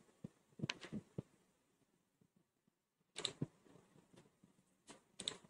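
A few faint clicks of a computer mouse as the chart drawings are switched off and the view is changed, spread out with short pauses between them, the loudest about a second and about three seconds in.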